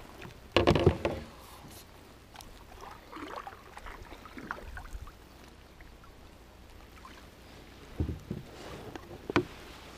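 Knocks, clatters and rustling of fishing gear being handled in a plastic sit-on-top kayak, with a loud cluster of knocks about half a second in and sharper clicks and taps near the end.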